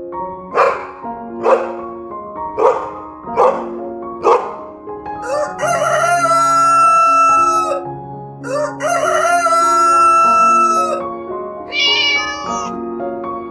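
A rooster crowing twice, each a long crow of about two and a half seconds, after five short sharp calls, over background music. A brief high call comes near the end.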